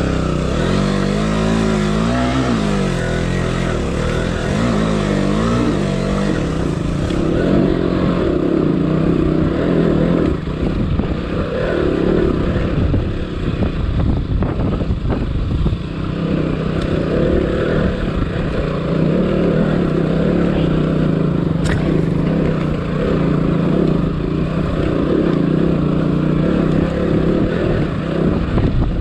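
Off-road motorcycle engine revving hard under load on a steep climb. Its pitch rises and falls twice in the first few seconds, then it holds a steady, labouring pull.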